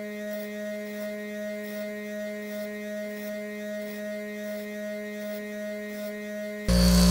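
Bench grinder running unloaded with a steady hum that pulses about twice a second. Near the end the wheel bites into a fuel injector tip with a sudden, much louder grinding, as the injector's welded cap is ground off to decap it.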